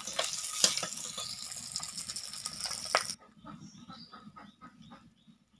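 Rohu fish steaks sizzling in hot mustard oil in a wok, with clinks and scrapes of a metal spatula as the fried pieces are lifted out onto a steel plate. The sizzling cuts off abruptly about three seconds in, leaving only a few faint clicks.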